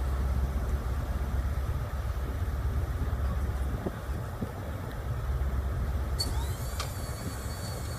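Low rumble of a departing HST diesel train pulling away into the distance. About six seconds in, a faint high-pitched squeal with a sliding pitch comes in for a couple of seconds.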